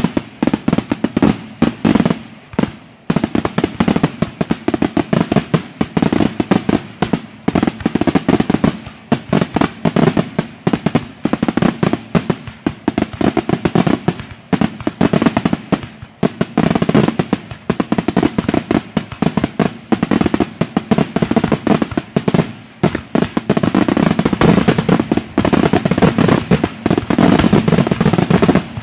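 Aerial firework shells bursting in a dense, rapid barrage. The reports overlap almost without pause, with only brief lulls.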